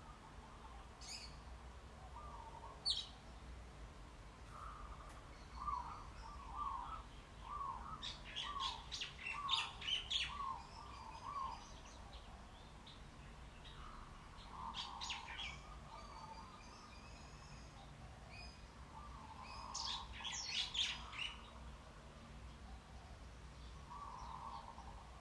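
Songbirds chirping: a quick run of short repeated notes, with sharper high chirps twice, over a faint low hum.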